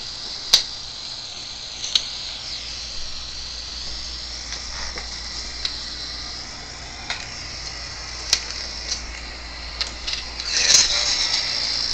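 Steady hiss from a handheld digital voice recorder playing back an EVP session recording, with a few sharp clicks, the loudest about half a second in.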